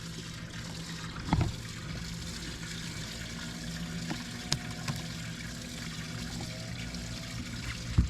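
Water trickling and lapping at a boat, over a steady low hum, with a few faint knocks.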